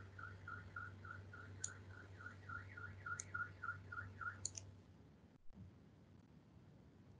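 Faint electronic alarm beeping in rapid pulses, about four a second and wavering a little in pitch, that stops about four and a half seconds in. A few sharp clicks come in every second and a half or so over a low electrical hum, which drops out soon after the beeping stops.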